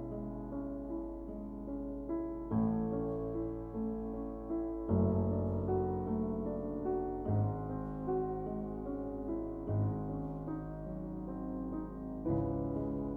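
Slow, soft piano music, with a new chord sounding every two seconds or so.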